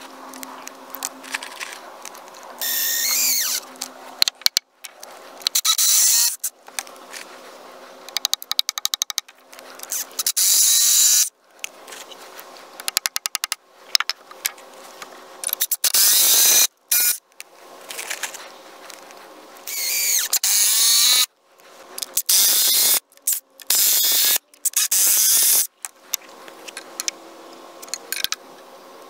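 Cordless drill run in several short bursts of about a second each, spinning up and boring into cedar timber, with clicks and knocks in between.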